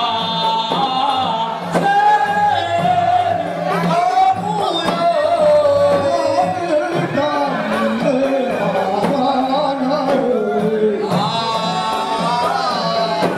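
Live Comorian ouemani song: a male singer's voice amplified through a microphone and PA, carrying a wavering melodic line over a steady low hum.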